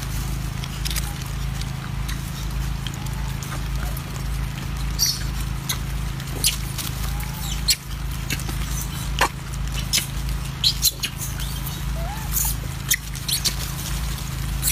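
Macaques feeding on bananas: scattered clicks and rustles of handling and chewing, with a few short, squeaky rising-and-falling calls, over a steady low hum.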